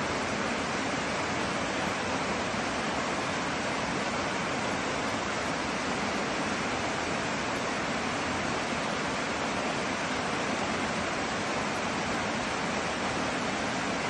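Mountain stream cascading down over rocks, a steady, unbroken rush of water.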